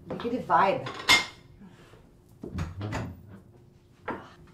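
Kitchen clatter of dishes and cupboards: plates set down and knocked on a counter, with a sharp clack about a second in, a few knocks near the middle and one more near the end.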